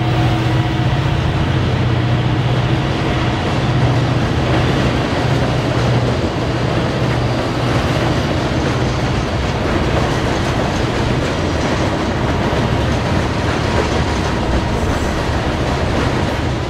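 Freight train rolling past behind diesel locomotives: a low engine rumble that eases off after about four seconds, over the steady clatter of hopper cars on the rails.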